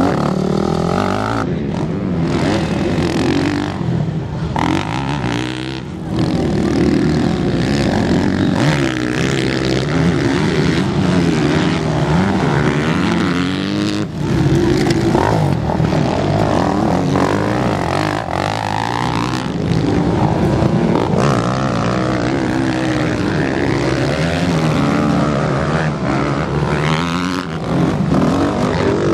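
Motocross bikes racing on a dirt track, their engines revving up and down as they are ridden through corners and over jumps. The engine sound changes abruptly several times.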